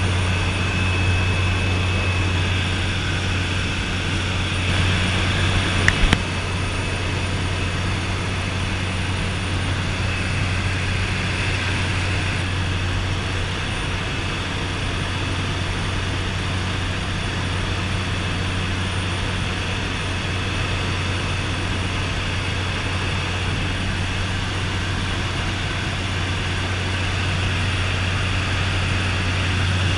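Cabin noise of a de Havilland DHC-3 Otter turboprop in flight: the turbine engine and propeller running steadily as a deep drone. Two brief clicks about six seconds in.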